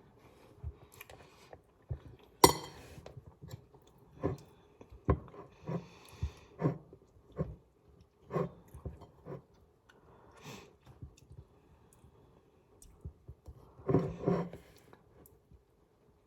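A person chewing a mouthful of dry, crumbly brownie, with irregular soft crunches and clicks and one sharper click about two and a half seconds in.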